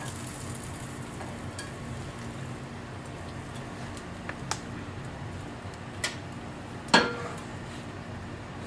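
Chopped bacon being slid off a cutting board into a frying pan: a few light clicks, then about seven seconds in a sharp knock with a short ring as the board strikes the pan, over a steady low hum.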